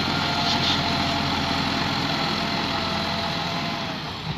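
Massey Ferguson 385 tractor's diesel engine running steadily at low revs, getting fainter near the end as the tractor pulls away.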